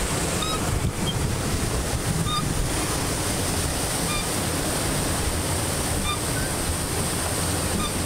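Steady rush of water from a small waterfall, with wind buffeting the microphone. A few faint short chirps come through every second or two.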